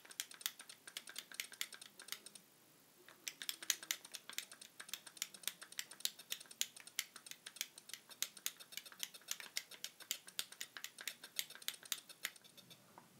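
A rapid, irregular series of sharp clicks, several a second, with a short pause about two seconds in.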